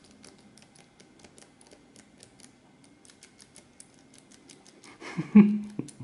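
Small metal number wheels of a four-wheel combination padlock clicking through their detents as they are turned digit by digit, a quick run of small irregular clicks. A short hum of a man's voice near the end.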